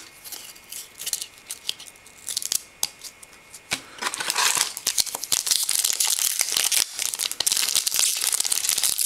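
Light rustles and clicks of trading cards being handled, then, from about four seconds in, steady crinkling and tearing of a foil card pack's wrapper as it is pulled from the box and opened.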